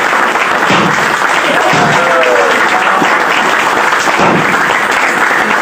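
Crowd applauding with steady, continuous clapping.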